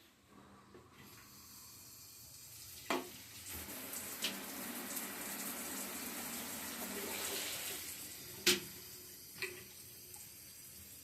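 Water running from a tap into a sink, the flow growing louder over several seconds and easing off near the end, with a few sharp clicks along the way, the loudest about eight seconds in.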